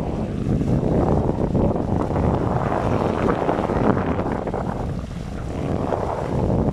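Wind buffeting the microphone, a loud, gusty rumbling noise that eases a little about five seconds in.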